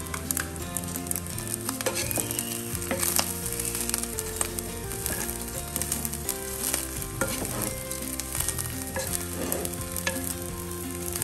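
Rice frying in hot oil in a pot, sizzling steadily, while a spoon stirs it with frequent scraping clicks against the pot.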